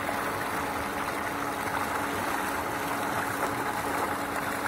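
Water gushing steadily from a pipe into a concrete tubewell tank and churning the surface, over a steady low machine hum.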